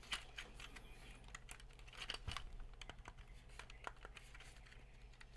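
Scattered light clicks and taps of plastic interior trim parts being handled and fitted together, irregular and faint.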